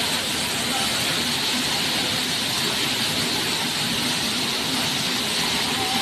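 Waterfall pouring into a plunge pool: a loud, steady rush of falling water.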